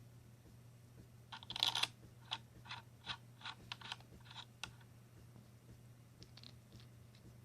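Light metallic clicks and rattles from small screws and metal parts being handled as a Loctite-coated screw is started by hand into a rifle bipod adapter: a short clatter, then about seven separate clicks at a steady pace, and a few fainter ones near the end.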